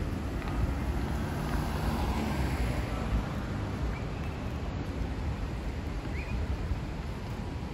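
Road traffic going by, a steady rumble with a vehicle passing about one to three seconds in. Two faint short high chirps come later.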